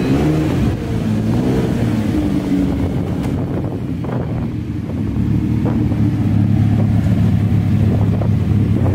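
Lamborghini Diablo's V12 engine running while driving, its pitch rising and falling over the first couple of seconds, then holding steady and growing a little louder toward the end.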